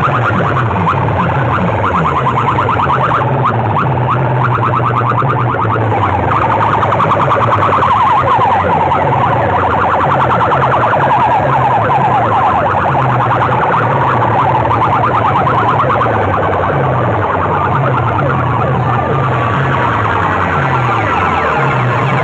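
Very loud DJ sound-box system playing a competition track: fast warbling, siren-like tones over a repeating, stepping bass line, without a break.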